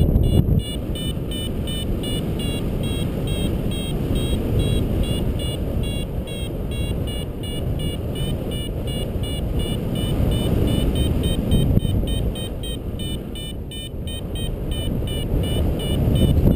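Paragliding variometer beeping rapidly, about four short high beeps a second with the pitch wavering slightly: the sign that the glider is climbing in lift. Wind rushes steadily over the microphone.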